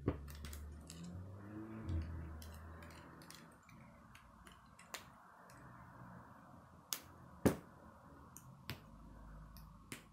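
K'nex plastic pieces being handled and snapped together: many irregular sharp plastic clicks over a soft rustling, with the loudest click about three-quarters of the way through.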